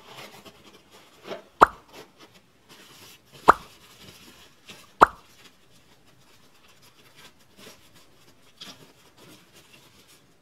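Three short, loud pops, each with a slight falling tail, spread over the first five seconds: the click-and-pop sound effects of an on-screen subscribe-button animation. Under them runs soft rustling of a plastic wrapping bag being pulled off a metal part.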